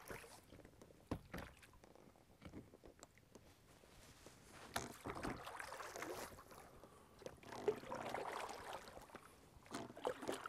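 Oars of a small inflatable rowboat dipping and splashing as it is rowed, faint, with two fuller stroke splashes about five and eight seconds in and a few light knocks of the oars in between.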